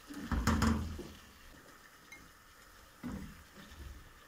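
Plastic slotted spoon scraping and knocking in a nonstick pot as fried chicken pieces are lifted out of hot oil, under a faint sizzle. The loudest clatter comes about half a second in, and a smaller one about three seconds in.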